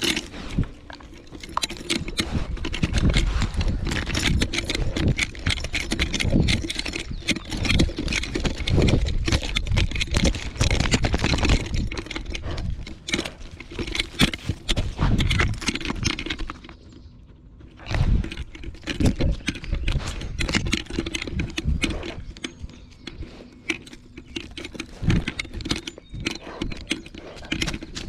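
A Weimaraner's paws crunching and scattering loose gravel as it walks, a dense run of crackling steps. The crunching stops for about a second roughly two-thirds of the way through, then starts again.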